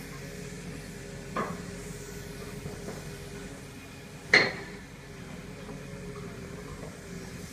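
Tracked excavator's diesel engine running steadily while it knocks apart a concrete building. There is a sharp knock about a second and a half in, and a much louder sharp impact of the machine against the concrete about four seconds in.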